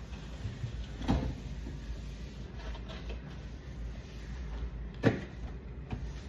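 Two sharp knocks, one about a second in and a louder one about five seconds in, over a low steady hum.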